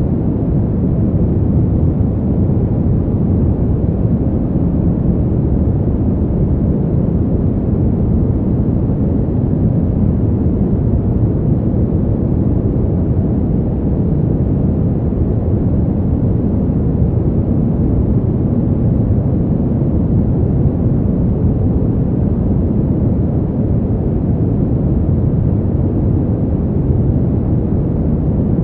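Soft white noise for baby sleep, filtered deep and muffled so that it is mostly a low rumble with no hiss on top. It runs perfectly steady, without any change.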